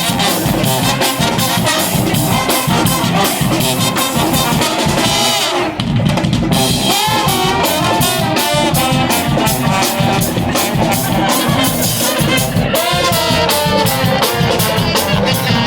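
Street brass band playing live: trumpets and trombones carry the melody over a steady drum-kit beat. The drums drop out briefly about six seconds in, then the beat comes back under the horns.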